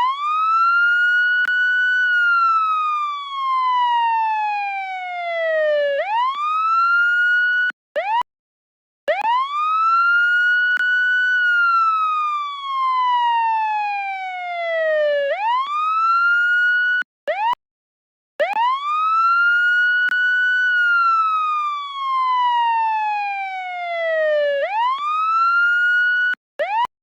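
Police siren wailing: the tone climbs to a high pitch, slides slowly down over about four seconds, then shoots back up. The cycle repeats three times, with a short break of silence between cycles.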